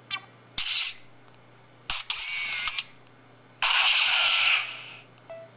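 Camera-shutter sound effects played through the small speaker of the MS200 phone: a click followed by three separate high, hissing shutter sounds, the last one about a second long and the loudest.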